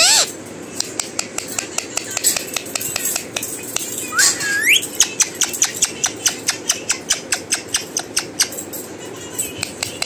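Pet parrot making a fast run of short, sharp chirps or clicks, about four a second, with one rising whistle about four seconds in.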